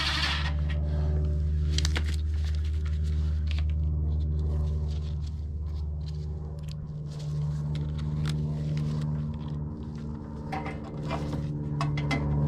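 A steady low mechanical hum with light clicks and scrapes of hand tools and small metal parts as a muffler shield is screwed back onto a small engine.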